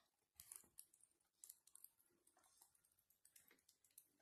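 Near silence with faint, irregular clicks and crackles.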